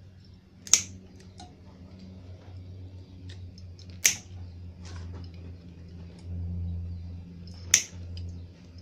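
Diagonal wire cutters snipping through computer power supply cables, three sharp snips a few seconds apart. A low steady hum and a few faint ticks of wires being handled sit underneath.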